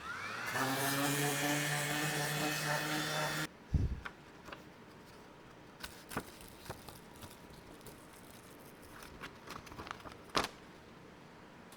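An electric power tool motor spins up with a rising whine, runs steadily for about three seconds and cuts off abruptly. A dull thump follows, then scattered light scratches and taps on wood.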